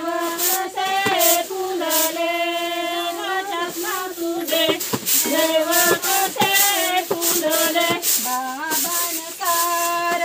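Background music: a Marathi folk song with a high sung melody, its notes held and sliding, over a steady shaker beat of about two strokes a second.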